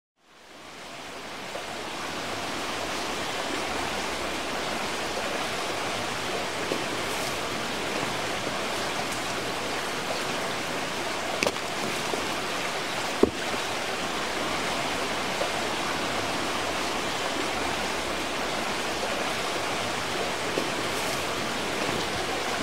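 Shallow stream running over rocks, a steady rush of water that fades in over the first couple of seconds. There is a brief faint knock about halfway through.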